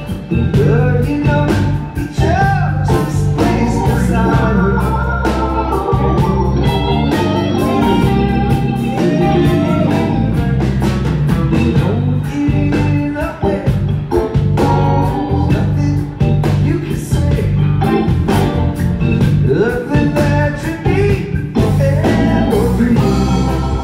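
Live band playing a blues-rock tune: Hammond organ over electric guitar and bass guitar, with regular drum hits keeping the beat.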